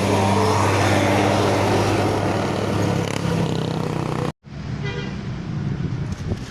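A bus engine runs close by with a steady low hum and broad rushing noise, as the last notes of a telolet horn tune fade out at the start. The sound cuts off abruptly about four seconds in, then engine sound returns with a few faint horn tones.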